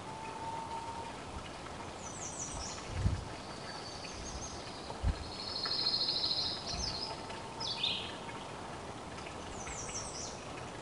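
Small wild birds singing over steady outdoor background noise: quick runs of high, falling notes twice and a fast high trill in the middle, with a few short low thumps.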